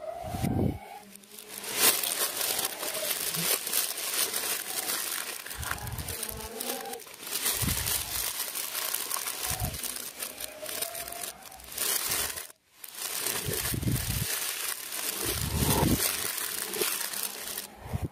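Clear plastic bag crinkling as hands wrap a wristwatch in it, with a brief pause about two-thirds of the way through.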